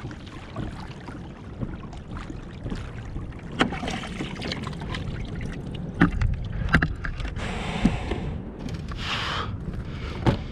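Kayak moving through shallow water, with water swishing along the hull and several sharp knocks on the hull, over a steady low rumble.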